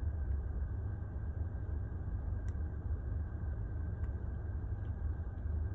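Steady low rumble of a parked car's engine idling, heard from inside the cabin, with a few faint ticks.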